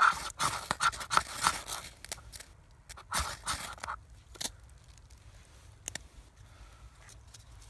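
Ferro rod scraped hard with a Schrade SCHF56 knife, throwing sparks onto feather-stick shavings: a quick run of sharp scrapes in the first two seconds, a few more about three seconds in, then only a couple of light ticks.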